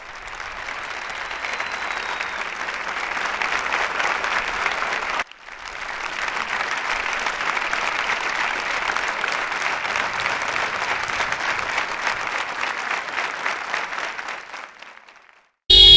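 Crowd applauding, a dense steady patter of many hands that fades in, breaks off abruptly about five seconds in, then resumes and fades away near the end.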